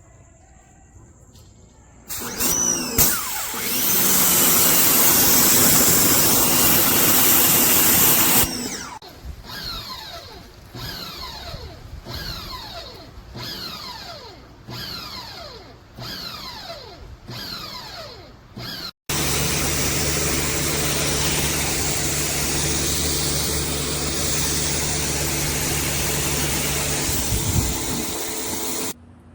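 Pressure washer spraying through a short trigger gun: a long steady blast of spray, then about ten short bursts roughly a second apart, each falling in pitch. After an abrupt break it runs steadily, with the pump's hum under the spray.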